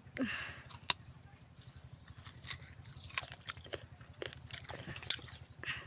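A person biting into a raw green guava with one sharp crunch about a second in, then chewing it with small crisp crunching sounds.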